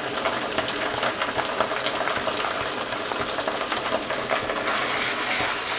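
Sliced onions and freshly added ginger-garlic paste frying in hot soybean oil in a non-stick pan: a steady sizzle made of many small crackles.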